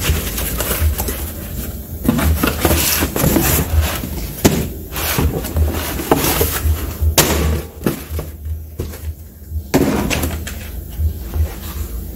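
Cardboard boxes being handled and opened on a steel workbench: flaps scraping and rustling, with a few sharp knocks as the boxes are moved and set down.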